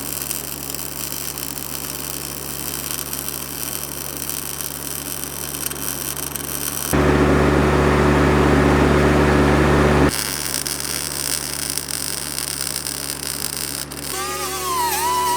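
Welding arc from a Lincoln 210MP multi-process welder, a steady hum with crackling hiss. It turns louder and denser for about three seconds in the middle. Near the end a wavering pitched sound begins.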